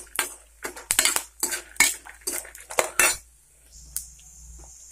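Steel spoon scraping and clinking against a stainless-steel kadai as fried peanuts, chana dal and dried red chillies are stirred, in quick repeated strokes of about three a second. The stirring stops about three seconds in.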